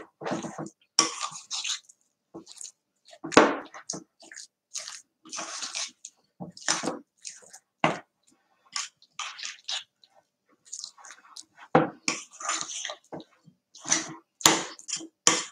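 A spoon stirring a thick, sticky mixture in a glass bowl: a run of irregular squelching and scraping strokes.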